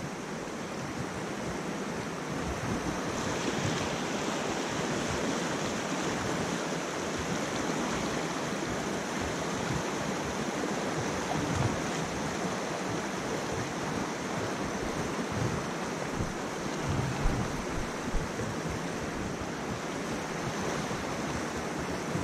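Fast water of a rocky mountain trout stream rushing through a riffle: a steady, even rushing hiss. A few short low bumps stand out in the second half.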